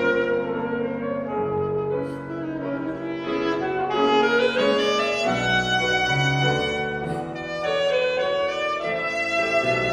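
Saxophone playing a melody of held notes, with grand piano accompaniment underneath.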